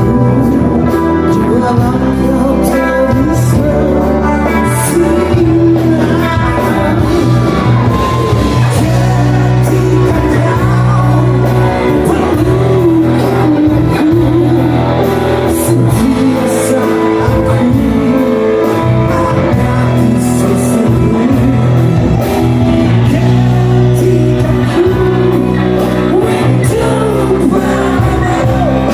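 Music: a Malay rock kapak song with a singer over guitar.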